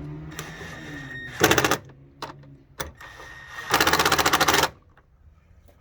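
Socket ratchet clicking rapidly in two bursts, a short one about a second and a half in and a longer one near four seconds, as the catch can's 10mm mounting bolts are run down.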